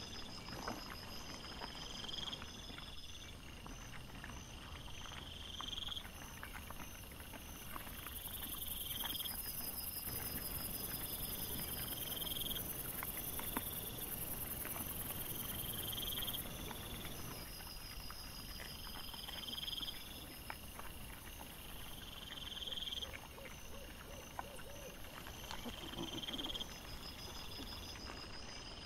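Night insects chirping: short rising chirps repeat about once a second, with faster high trills coming and going. Underneath are soft rustling and crackling, many small clicks from wild boar and piglets rooting and stepping in the forest litter.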